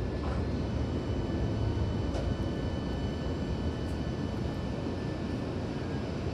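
Running noise inside a Hankyu Kyoto Line train car pulling into its terminal platform: a steady low rumble with a faint high tone and a few light clicks.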